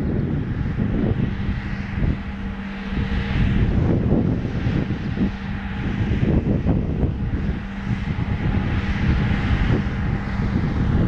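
Electroputere 060-EA (CFR Class 40/41) electric locomotive hauling a passenger train slowly out of a station: a steady hum from its motors and cooling blowers, holding one steady tone, over the low rumble of the train.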